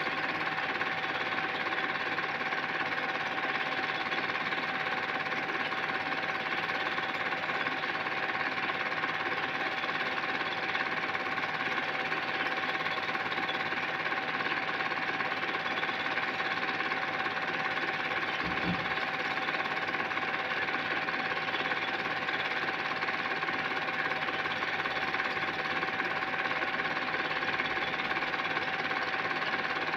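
Home-movie film projector running: a steady, rapid mechanical clatter of the film-advance mechanism over the even hum of its motor.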